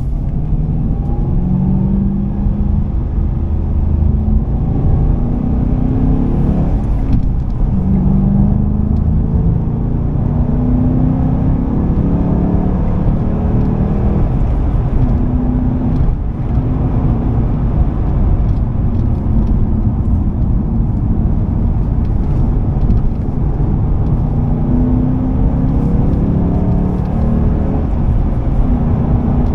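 2005 Ford Mustang GT's 4.6-litre V8 heard from inside the cabin, accelerating: the engine note rises in pitch several times, each rise breaking off and picking up lower as it pulls through the gears of the manual gearbox.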